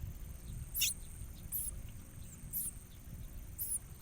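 Short, very high-pitched chirps of ciblek koya (prinia), repeating about once a second over a low rumble.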